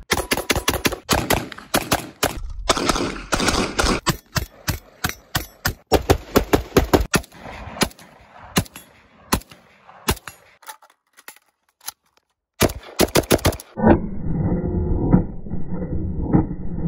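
Rifle gunfire: fast strings of sharp shots, then scattered single shots and another quick string. In the last few seconds the shots sound dull and muffled over a steady rumble.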